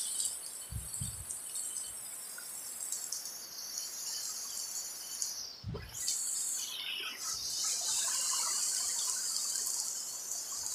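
Heavy rain falling steadily, a constant high hiss, with a few low knocks about a second in and again near the middle.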